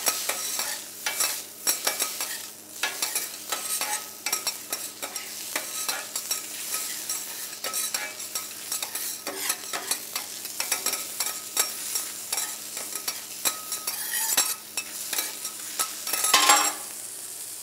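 Metal spatulas clicking and scraping rapidly on a hot teppanyaki griddle as chicken pieces are turned, over a steady sizzle of frying. A louder hiss rises briefly near the end.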